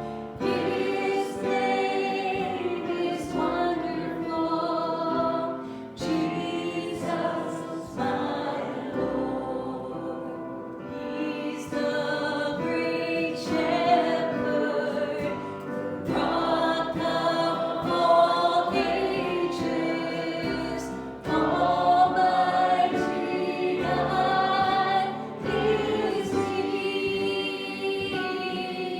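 A group of voices singing a worship song in unison or harmony, with held notes and instruments accompanying, including sharp percussion hits every few seconds.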